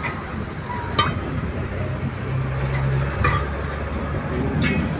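Steel lock rings of a truck wheel clinking against each other and the steel rim as they are handled and set into place: about three sharp metallic clinks with a short ring, over a steady low mechanical hum.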